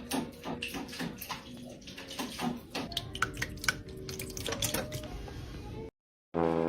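Water splashing and sloshing, with many irregular small knocks and splashes; it cuts off abruptly shortly before the end.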